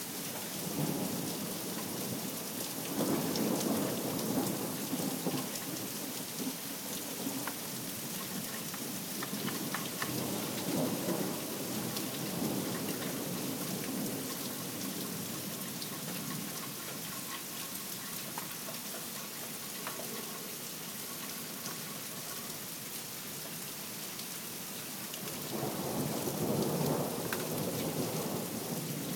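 Heavy rain falling steadily through a thunderstorm, with rolls of thunder rumbling under it, the strongest a few seconds in and again near the end.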